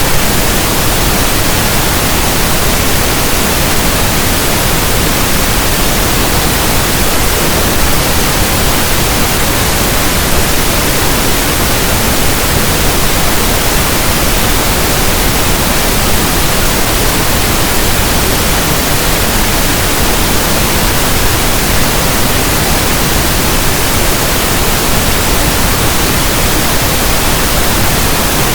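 Loud, steady pink noise: an even static hiss spread from low to high pitches, like a radio tuned between stations, with no change in it.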